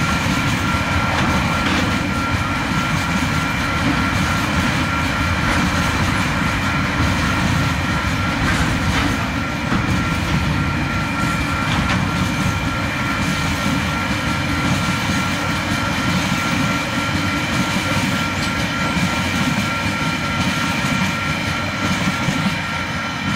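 Container wagons of a freight train rolling past on the rails, a loud, steady rumble of wheels and wagons that eases slightly near the end as the last wagons go by. Over it the level crossing's warning bell rings steadily.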